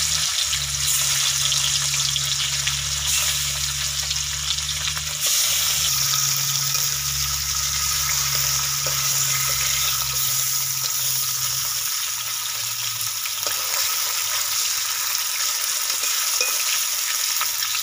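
Pomfret fish pieces sizzling steadily as they shallow-fry in hot oil in a wok.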